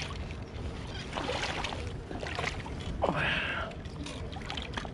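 Water splashing and running as a beach sand scoop digs out a target in shallow water, in a few separate scoops, the last and loudest about three seconds in.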